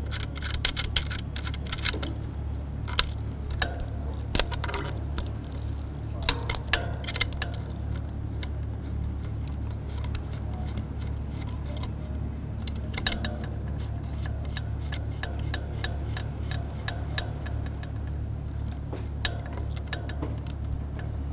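Light metallic clicks and jingles as cable connectors are fitted and cables handled at the base of a tripod-mounted satellite terminal. The clicks come in scattered clusters, most of them in the first half, over a steady low hum.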